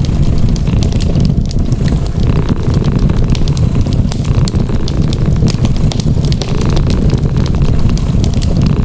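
A cat purring loudly and steadily, mixed with the scattered crackles and pops of a wood fire.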